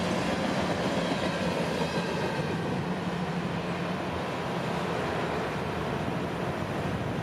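Cars of a mixed freight train (hoppers, tank cars, boxcars, gondolas) rolling past: a steady rumble of steel wheels on rail with a low hum underneath.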